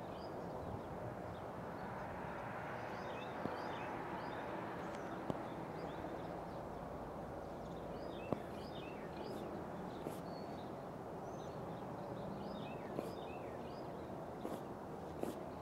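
Small birds chirping in quick, scattered clusters over a steady background noise. A few sharp clicks stand out, the loudest about eight seconds in.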